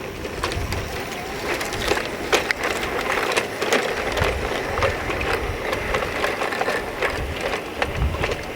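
G gauge model train running on garden railway track, with irregular clicking and clattering of the wheels over a low rumble.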